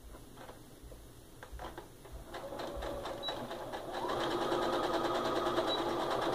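Electric sewing machine stitching a seam, starting slowly with a few clicks and speeding up about two seconds in, then running steadily at full speed from about four seconds.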